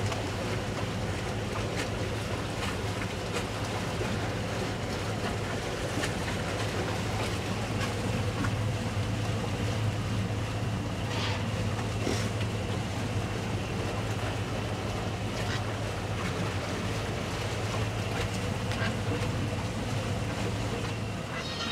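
Towboat's engine running steadily under way, a constant low drone, with water rushing past the hulls of the two boats tied alongside and a few light knocks.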